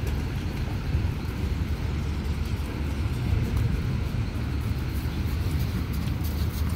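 Steady low rumble of wind buffeting an outdoor phone microphone.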